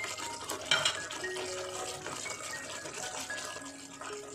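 A metal spatula scrapes and clatters against the kadai twice in the first second while stirring thick masala gravy. Soft background music notes play throughout.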